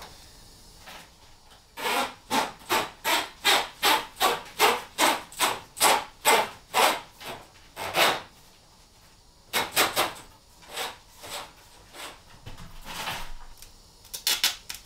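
Rhythmic rubbing scrapes, about two to three a second for several seconds, then a few more irregular strokes after a short pause: a cable being worked back and forth through a tight passage in a van's body.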